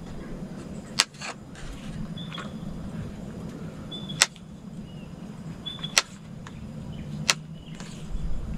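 Knife blade striking a plastic cutting board while slicing garlic and mushrooms: four sharp single knocks spaced one to three seconds apart, over a steady low hum.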